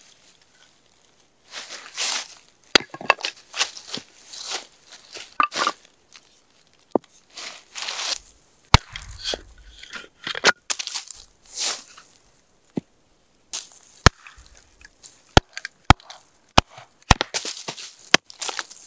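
Hatchet splitting small pieces of firewood into kindling on a wooden chopping stump: a series of sharp chops, coming quicker in the last few seconds, with rustling and clatter of the wood being handled and set up between strikes.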